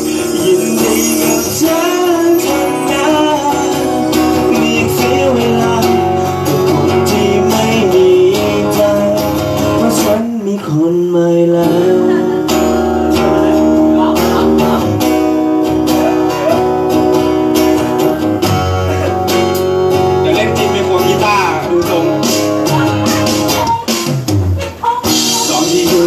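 A live band playing a song with the guitar to the fore, sustained and bent guitar notes over a steady beat. The music briefly drops out about ten seconds in.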